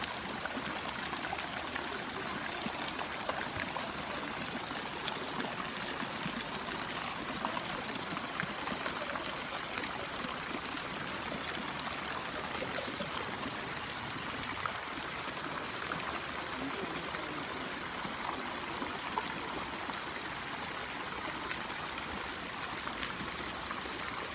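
Water falling steadily onto the surface of a swimming pool, an even trickling hiss with small splashes.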